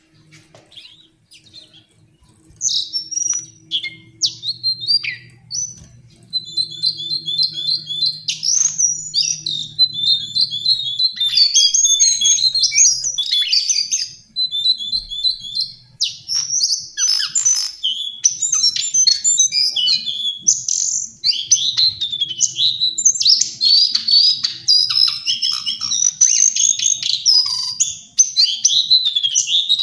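Lesser shortwing (Brachypteryx leucophrys) singing: rapid, high, warbling phrases and trills that begin about two seconds in and run almost without a break from about eleven seconds on. A faint low hum lies underneath.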